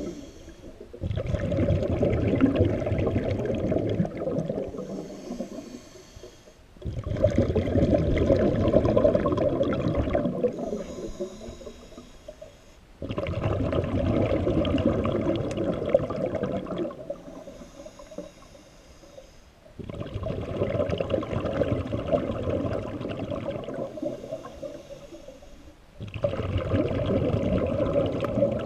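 A scuba diver breathing through a regulator underwater: five long bubbling exhalations about six seconds apart, each followed by a short, quieter inhalation with a faint high hiss from the regulator.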